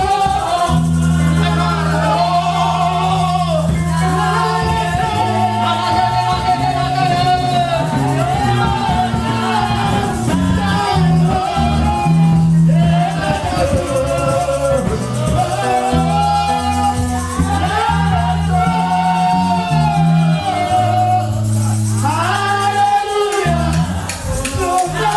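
Music with a singing voice over held bass notes that change every second or two.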